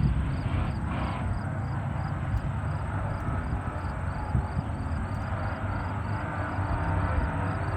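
Hydroplane race boat engines running, a steady low drone over a wash of noise.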